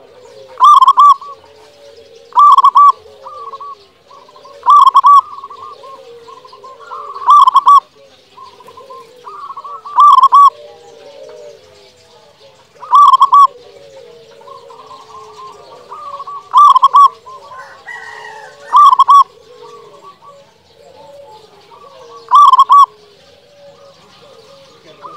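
Local perkutut (zebra dove) singing: a loud cooing phrase every two to three seconds, nine in all. Underneath runs a softer, constant chatter of other bird calls.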